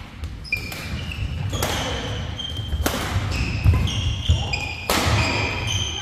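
Badminton rally: rackets strike the shuttlecock with several sharp hits a second or two apart, while court shoes squeak and feet thud on the hall floor.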